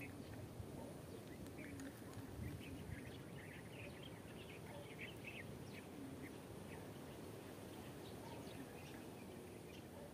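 Birds chirping faintly in short, scattered calls, thickest in the first half, over a low steady outdoor background.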